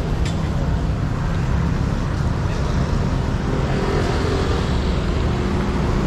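Street traffic noise from motorbikes and cars running along the road: a steady low rumble.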